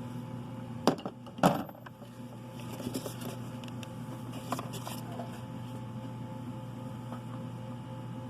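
Hand wrench clinking against metal while working on the turbo oil line fitting: two sharp clinks about a second and a second and a half in, then a few fainter ticks, over a steady low hum.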